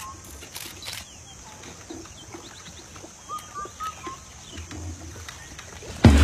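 Quiet rural outdoor background with faint, short bird chirps in the middle. Two light clicks come near the start, and a much louder sound cuts in just before the end.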